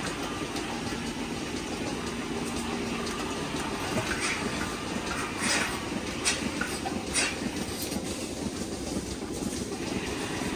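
Steady mechanical rumble with a few sharp clicks and knocks in the middle of it, like machinery or a vehicle running.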